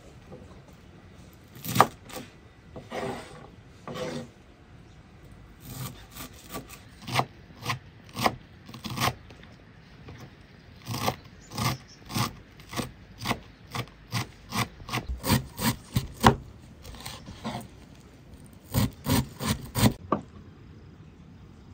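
Kitchen knife chopping fresh dill and green onions on a wooden cutting board: runs of quick, sharp chops about two a second, broken by short pauses.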